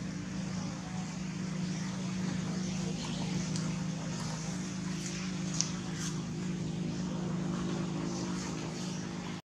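Steady low mechanical hum, with a brief sharp click about halfway through.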